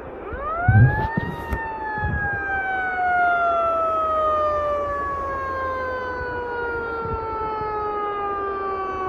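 Fire engine siren winding up to a high pitch in about a second, then slowly coasting down in pitch without cycling again, the wind-up and run-down of a mechanical siren. A low thump comes near the start, the loudest moment.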